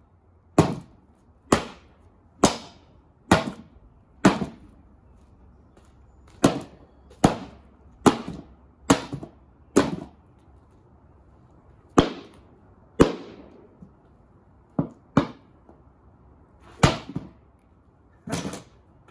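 Repeated heavy blows smashing a cheap particle-board subwoofer cabinet, about sixteen sharp cracking impacts at roughly one a second, with a few short pauses.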